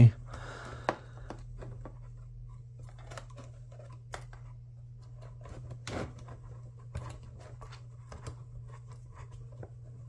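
Fan cables being tucked by hand into a plastic CPU cooler frame: scattered light clicks and rustles, with a few sharper plastic ticks. A steady low hum runs underneath.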